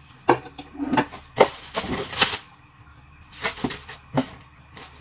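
Plastic wrapping crinkling and cardboard packaging rustling and knocking as it is handled. There are a few sharp knocks and a longer crinkle about a second and a half in.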